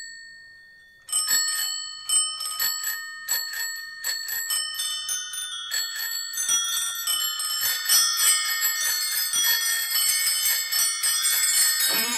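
Bicycle bells ringing as part of a rock song's bell interlude. After a near-silent first second, single rings start up and come faster and faster until many bells ring over one another.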